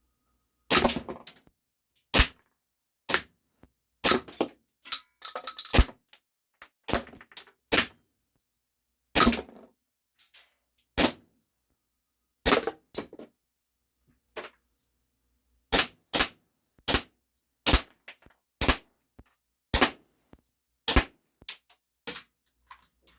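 Steyr L9-A2 CO2 blowback airsoft pistol firing about twenty single shots, roughly one a second at an irregular pace, each a sharp crack with the slide's clack. It keeps shooting until the CO2 cartridge runs dry.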